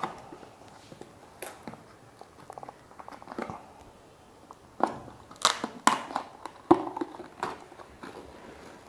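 Seal being picked at and peeled off the mouth of a plastic protein-powder tub: scattered soft clicks and crinkles, then louder sharp crackles and tearing from about five seconds in.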